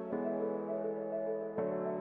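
Background music: soft, sustained piano or keyboard chords, with a new chord coming in about a second and a half in.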